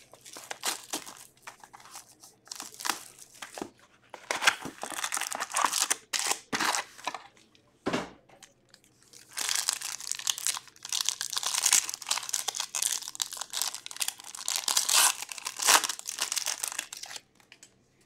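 Sealed hockey card packs being torn open by hand, the wrappers crinkling and tearing in irregular bursts. The bursts are densest in the second half and stop shortly before the end.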